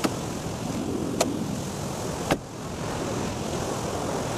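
A car door and bonnet release being worked: three sharp clicks about a second apart over a steady rushing background noise.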